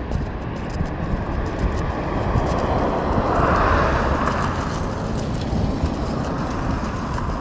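Road traffic: a vehicle passes, its noise swelling to a peak about halfway through and then fading, over a steady low rumble.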